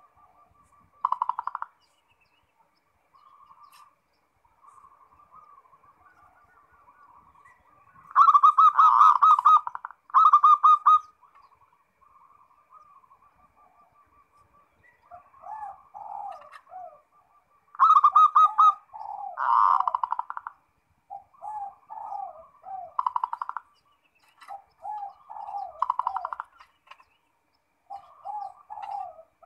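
Zebra dove (perkutut) cooing: repeated rolling coo phrases, with its loudest bursts about eight to eleven seconds in and again around eighteen to twenty seconds, and runs of short stuttering notes in the second half.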